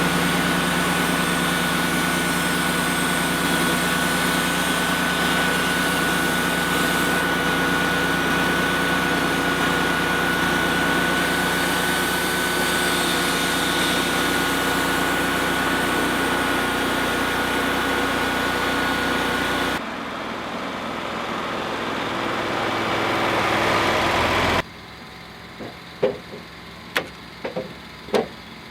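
Wood-Mizer LT35 portable band sawmill running steadily with a constant high whine. About 20 seconds in the sound changes and builds for a few seconds, then cuts off abruptly, followed by a few sharp knocks.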